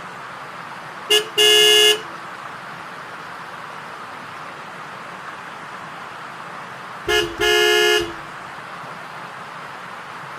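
A horn honking twice, each time a brief toot followed by a longer one of about half a second, two close pitches sounding together. A steady hiss runs underneath.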